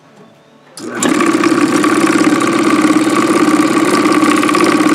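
Spex Industries 8000 Mixer Mill switched on about a second in: the motor and its clamp arm start shaking at once and run loud and steady with a fast, even chatter.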